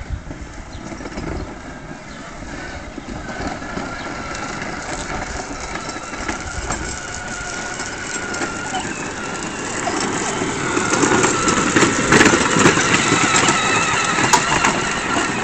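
Children's battery-powered ride-on quad bike running, its electric motor giving a steady whine that grows louder as it comes close. A few sharp clicks and knocks come near the end.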